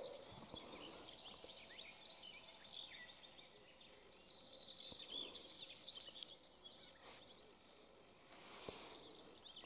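Near silence with faint bird song: many short high chirps and whistles over quiet outdoor ambience.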